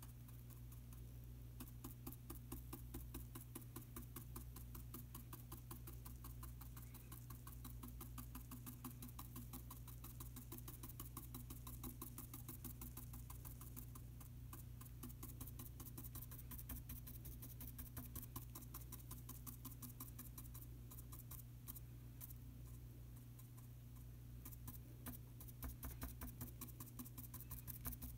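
Paintbrush dabbing on the painting surface: many small, faint taps a second, keeping on throughout. A steady low electrical hum lies under it.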